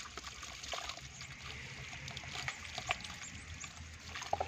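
Water trickling and squelching in wet sand at the base of a newly bored tube-well pipe as sand is packed around it by hand, with scattered small clicks.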